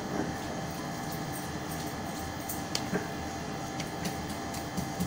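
Hands kneading and rolling soft chenna dough into a ball on a ceramic plate: faint squishing, with a few light clicks about three seconds in, over a steady background hum.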